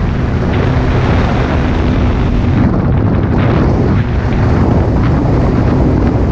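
Heavy wind buffeting on the microphone of a moving motorcycle, a loud steady rumble, with the motorcycle's engine running faintly underneath.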